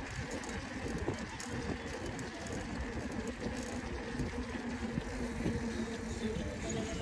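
Wind rumbling on the microphone while a mountain bike rolls steadily along a concrete pier deck.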